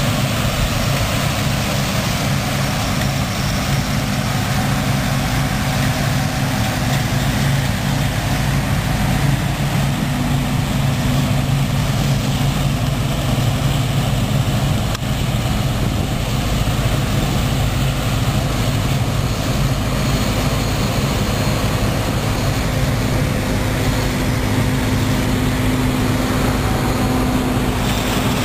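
John Deere tractor engine running steadily at an even speed.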